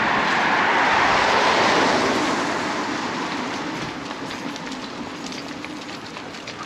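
A vehicle passing close by, its rushing noise swelling over the first two seconds and then slowly fading away.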